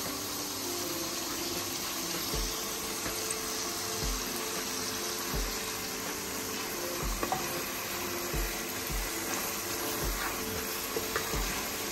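Onion, garlic and tomato-paste masala sizzling in oil in an aluminium pot, a steady hiss, with soft low bumps every second or so as a nylon spatula stirs it.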